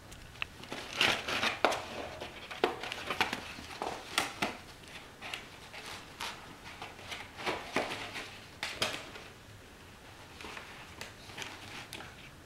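A puppy wearing a plastic cone collar playing with a rope toy on a carpet: irregular crinkly scrapes and knocks of the plastic cone and toy. They are busiest for the first nine seconds or so and thin out near the end.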